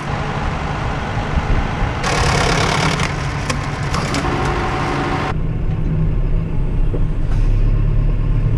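Tractor engine idling steadily. From about two seconds in, a loud rushing hiss sits over it for some three seconds and cuts off suddenly, leaving a heavier low engine drone.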